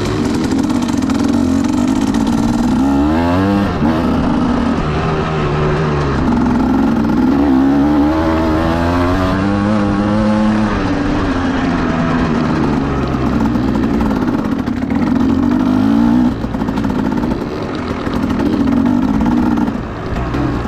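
Vehicle engine running loud under acceleration, its pitch rising and dropping several times as it revs up through the gears.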